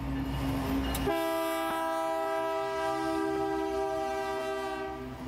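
Diesel freight locomotive passing close by with its engine running low. About a second in, its air horn sounds, held steady for about four seconds, then stops just before the end.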